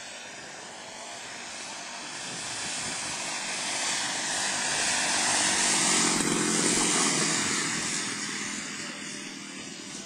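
Engine and propeller of a radio-controlled scale L-19 Bird Dog model airplane coming in to land. The sound swells as the plane passes low, is loudest about six seconds in, then fades as it touches down and rolls out on the grass.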